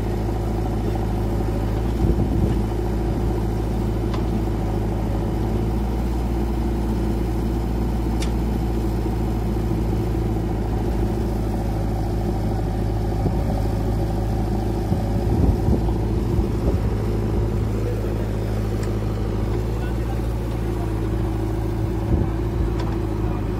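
Diesel engines of a JCB 3DX backhoe loader and an Escorts tractor running steadily at an even pitch. A few knocks and thuds stand out, the last near the end as a bucketload of soil is tipped into the steel tractor trolley.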